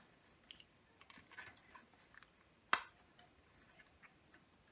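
Small, sparse clicks and ticks from prying at the fluorescent fixture's push-in wire connector tabs, with one sharp click a little under three seconds in.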